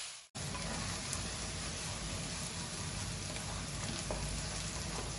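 Chopped onions and cumin seeds sizzling steadily in hot oil in a stainless-steel kadhai, sautéing toward light pink, with a few faint scrapes of the spatula against the pan. The sound cuts in after a momentary dropout at the very start.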